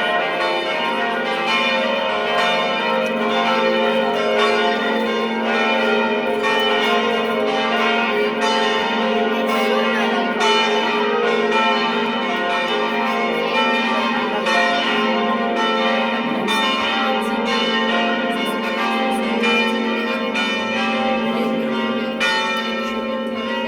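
Church bells ringing continuously, struck in quick succession so that their tones overlap and hang together.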